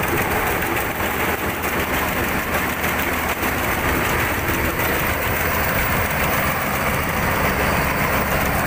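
Old 4LZ-3.2 rice combine harvester running steadily while cutting rice: its engine and threshing machinery make a dense, even noise.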